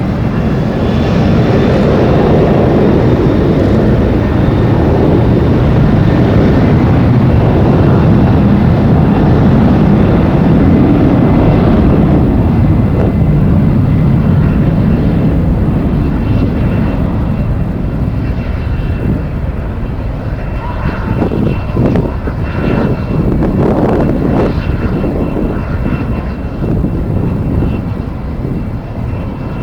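Jet airliner engines roaring, loudest in the first half and easing off, with a faint high whine over the roar. Strong wind gusts buffet the microphone in the later part.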